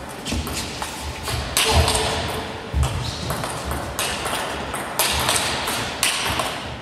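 Table tennis rally: the ball cracks off the bats and bounces on the table in a quick run of sharp hits, with hall noise behind.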